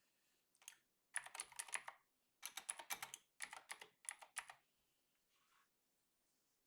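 Computer keyboard typing in three quick runs of keystrokes, with short pauses between them.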